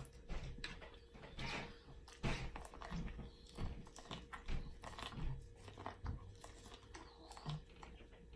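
A person chewing and biting up close: a bite of sausage, then bites along an ear of boiled corn on the cob, with irregular wet mouth clicks and smacks. A faint steady hum sits underneath.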